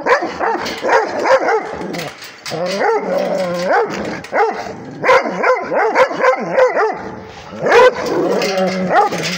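Several Rhodesian ridgebacks barking and yelping excitedly together, their calls sliding up and down in pitch into whining yips. It starts abruptly, with short lulls about two and seven seconds in.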